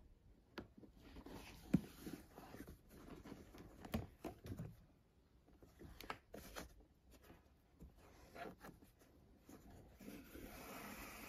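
Faint rustling and scraping of a fabric lining and zipper being handled and sewn, with a few light clicks and taps. The rustling grows denser near the end.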